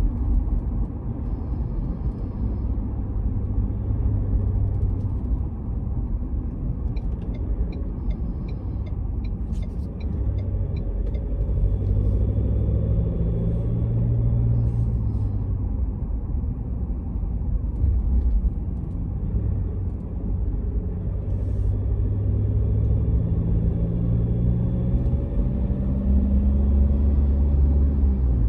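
2019 Ford Ranger WildTrak's 2.0-litre bi-turbo diesel running with a steady low rumble, its note rising and falling a few times. It carries the unexplained noise that the owner flags as a problem. A short run of faint ticks comes about a third of the way in.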